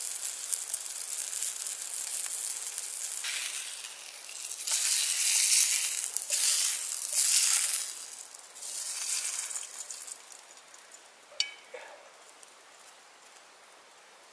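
A salmon fillet sizzling in oil in a small frying pan over a wood fire, the sizzle swelling louder for a few seconds around the middle, then dying away to quiet. A single sharp tap comes near the end.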